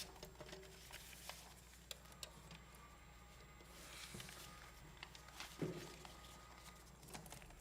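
Near silence: room tone with a low steady hum and a few faint clicks and a soft thump.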